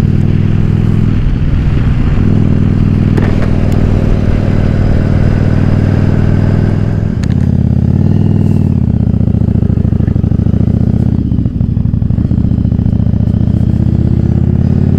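Yamaha Virago XV750's air-cooled V-twin engine running steadily while the motorcycle is ridden along the road. The engine note breaks briefly about seven seconds in and dips again a little past the eleven-second mark.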